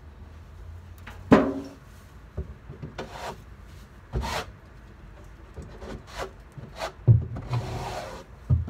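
Hand scraper scraping muck out of a wooden hutch floor in irregular strokes, with a few knocks against the wood.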